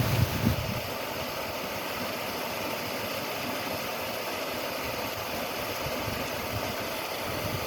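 Water rushing steadily through a canal lock's sluices, a constant even roar. A few low bumps come in the first second.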